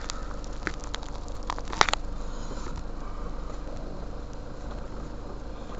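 Steady low hum of a Honda car heard from inside its cabin, with a few sharp clicks and taps in the first two seconds.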